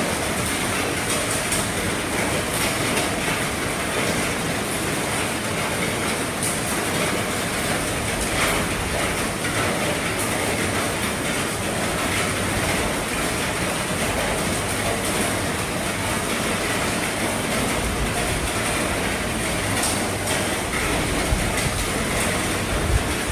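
Heavy rain falling steadily on an RV's roof, a dense even hiss with scattered drop ticks.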